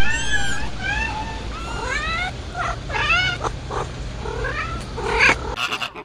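Young kitten mewing: a string of short, high-pitched mews, repeated about every half second to a second, over a low steady hum, cut off shortly before the end.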